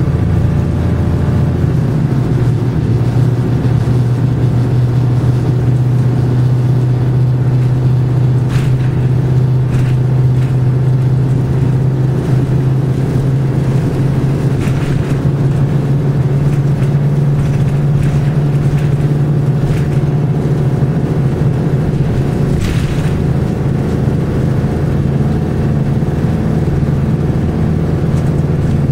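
Detroit Diesel 6V71N two-stroke V6 diesel of a 1982 GMC New Look bus running under way, a steady low drone heard from inside the cabin. Its note changes about two seconds in and again near the end, with a few sharp rattles along the way.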